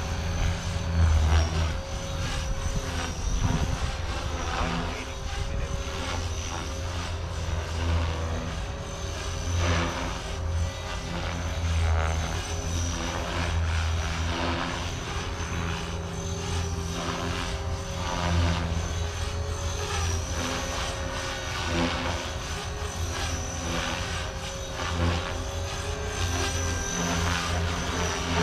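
Blade Fusion 360 electric RC helicopter in flight: a steady motor-and-rotor whine with a high tone on top, wavering slightly in pitch as it manoeuvres.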